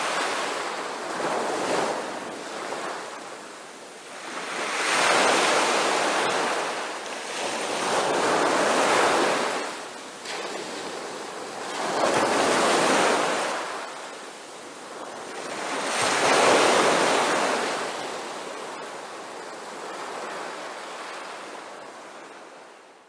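Ocean waves breaking and washing back, swelling and ebbing about every four seconds and fading out near the end.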